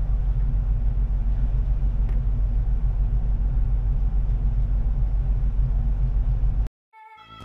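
Motor yacht's engine running under way, a steady low drone. It cuts off suddenly near the end, and music starts.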